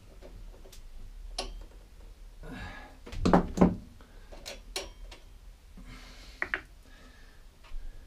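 Small clicks and knocks of metal parts being handled at a petrol lawnmower engine's carburetor linkage as it is unhooked by hand, with two louder knocks about three seconds in.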